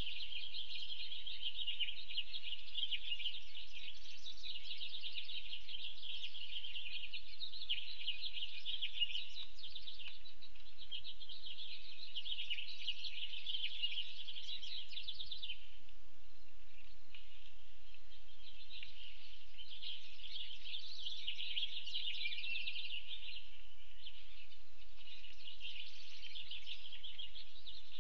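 Continuous high-pitched, rapidly pulsing chirping that swells and fades in waves and eases off for a few seconds midway, over a faint low hum.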